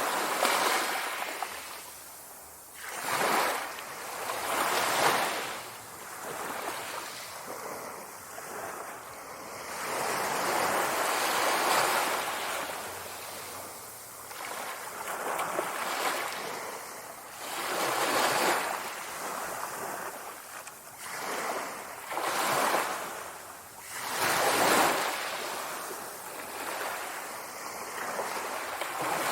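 Sea waves breaking and washing ashore, the surf swelling and ebbing in repeated surges every few seconds.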